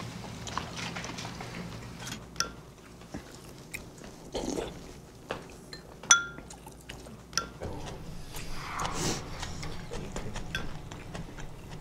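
Eating sounds at a dinner table: scattered clicks of chopsticks and spoons against ceramic bowls, with one sharp ringing clink about six seconds in, and soft chewing.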